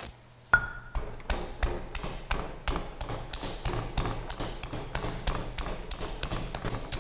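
Stone pestle pounding garlic and red chillies in a stone mortar, a steady train of knocks about three a second, starting about half a second in.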